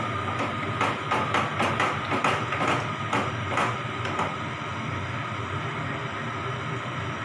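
A spatula knocking and scraping against a non-stick pan while stirring a thick masala and yogurt mixture, a quick run of taps, about three or four a second, that stops after about four seconds. A steady hum runs underneath.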